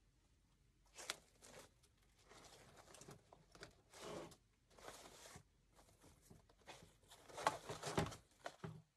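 Rustling and crinkling of greenery stems being pushed into a grapevine wreath and of wire ribbon loops being handled, in irregular short bursts that start about a second in and are loudest near the end.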